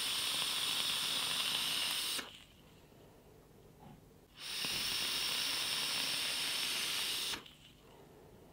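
Direct-lung draws on a single-coil rebuildable tank atomizer with a 0.23-ohm alien coil: a steady hiss of air and vapour through the airflow while the coil fires. There are two long draws, the first ending about two seconds in and the second lasting about three seconds from roughly four and a half seconds in.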